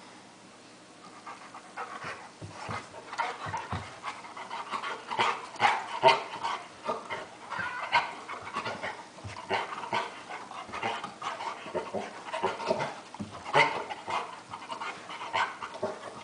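Golden retriever panting hard in quick, irregular bursts as it lunges and mouths at a cat in a play-fight.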